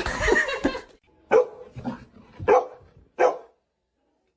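A dog barking: a run of short, separate barks starting about a second in, each under a second apart.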